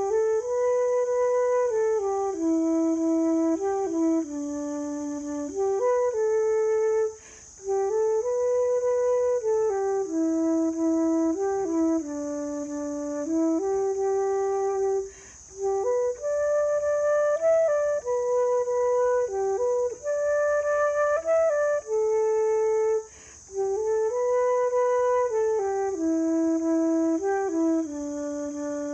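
Solo concert flute playing a slow Manx folk air, mostly in its low register, in phrases of about seven seconds with a short breath between each.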